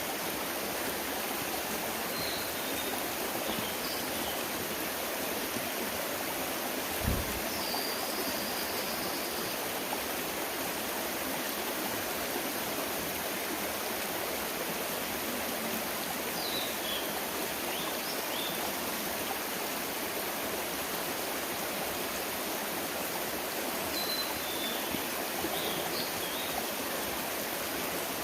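Mountain stream rushing steadily over rocks, with a small bird giving short, high chirps in several brief bouts. One brief low thump about seven seconds in.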